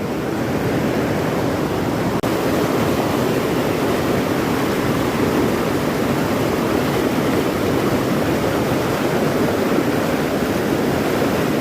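Rushing river water, a steady loud wash of noise, with a brief dropout about two seconds in.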